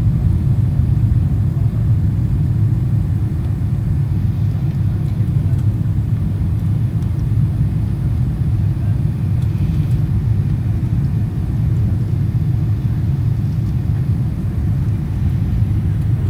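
Steady low rumble of an airliner's engines and airflow, heard from inside the passenger cabin as the plane descends on approach to land.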